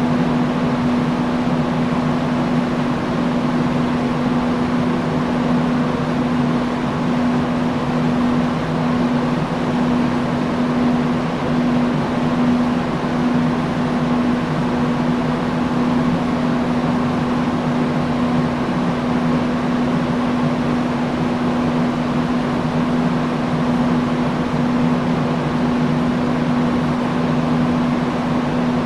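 Industrial fan running steadily: an even rush of moving air over a constant low motor hum.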